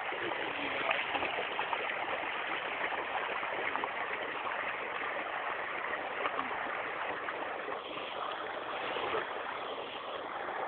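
Steady rushing of flowing floodwater, an even wash of noise with no breaks.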